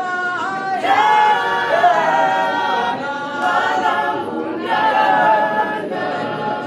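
A small group of men's and women's voices singing together a cappella, holding long notes in phrases of a couple of seconds.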